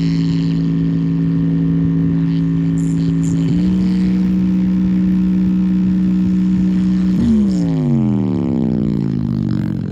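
A sustained, buzzy electronic tone played through a small Bluetooth speaker. It holds one pitch, shifts up a step about three and a half seconds in, then glides steadily down in pitch over the last few seconds.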